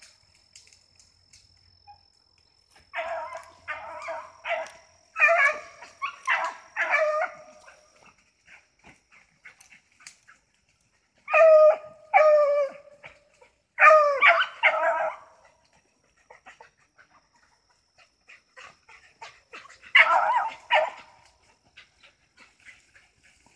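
Beagle hounds baying on a rabbit's trail, giving tongue in three spells of quick, repeated barks separated by quiet gaps.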